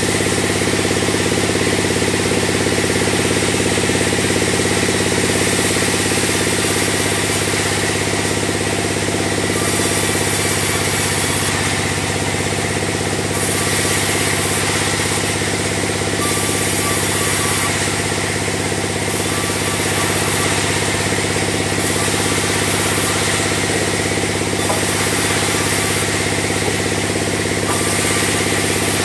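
Large log bandsaw mill running with a steady, engine-like drone while logs are sawn into beams. A hiss high in the sound comes and goes every second or two.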